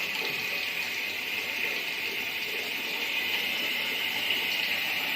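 Siera gas water heater running: a steady hiss, which comes from the burner and the water flowing through it.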